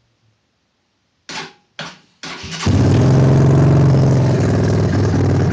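Honda dirt bike engine turning over twice in short bursts, then catching and running loud and steady on choke through a straight-pipe exhaust with no muffler packing.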